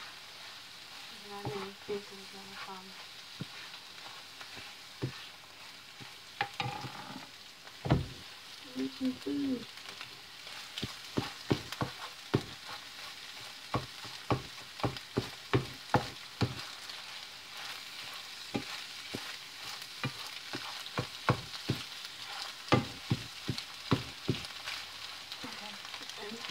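Scrambled eggs sizzling in a nonstick frying pan while a spatula stirs and scrapes them. Sharp taps of the spatula against the pan come now and then at first, then about twice a second from about ten seconds in.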